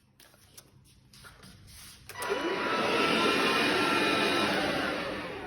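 Bosch vacuum cleaner switched on about two seconds in, its motor spinning up and then running steadily with a whining hum. Before that there are only a few faint clicks.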